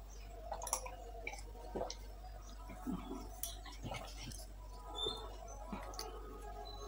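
Close-up drinking and handling sounds: sips and swallows of cola from a glass, then scattered small clicks and taps as the glass is set down on a banana leaf and a plastic ice-cream cup is picked up.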